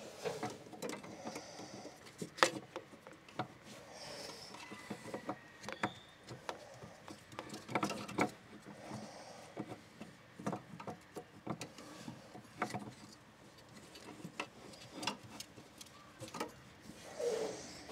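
Irregular clicks, taps and knocks of hands and tools handling diesel filter parts in an engine bay, with the sharpest knock about two and a half seconds in.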